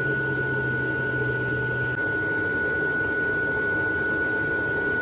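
Steady whirr of an electric blower fan keeping a large inflatable decoration up, with a constant high whine over it; a lower hum drops out about two seconds in.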